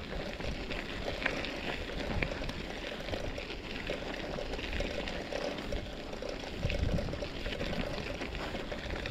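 Bicycle being ridden over a rough trail: a steady rough rushing noise of tyres and riding, with scattered light clicks and rattles.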